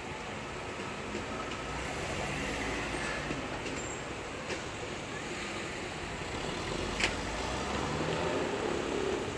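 Steady road and rail traffic noise at a level crossing, with a single sharp click about seven seconds in.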